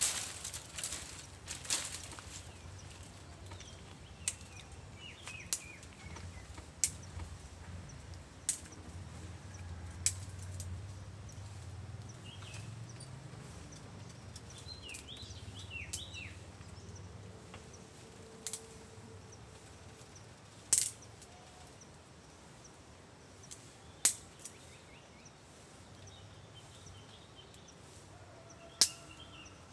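Sharp, isolated snaps of dry bamboo twigs and leaf litter, a few seconds apart, with the loudest near the end, over a quiet outdoor background with a few birds chirping.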